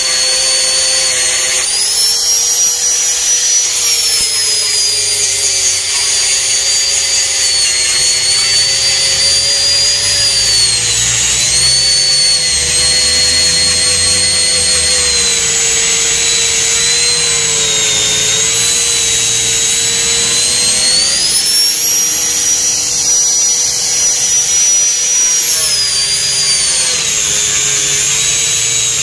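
Electric angle grinder with a cutting disc running without a break as it cuts along the edge of a loster block mold. Its high whine drops in pitch each time the disc is pressed into the cut and rises again as the load eases.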